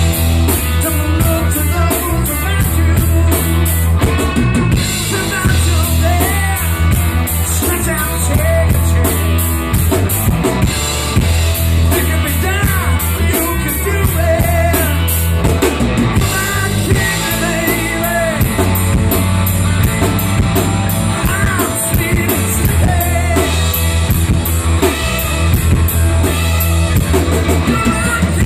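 Live rock band playing amplified: drum kit keeping a steady beat under electric guitars and electric bass.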